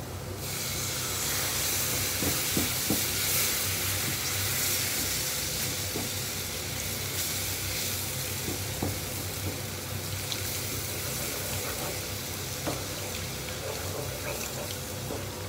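Butter-and-flour roux sizzling steadily in a frying pan as milk is added a little at a time, with a wooden spatula stirring against the pan and a few faint scrapes.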